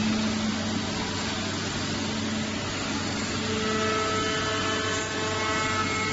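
Five-axis CNC router cutting solid wood: a steady mechanical hum with cutting noise. About three and a half seconds in, a whine of several steady tones comes in over it.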